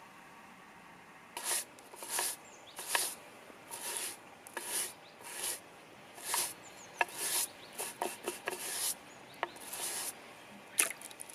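A small bristle brush scrubbing dandelion roots on a wet wooden cutting board: short rasping strokes, roughly one to two a second, starting about a second and a half in, with a few sharp knocks among them.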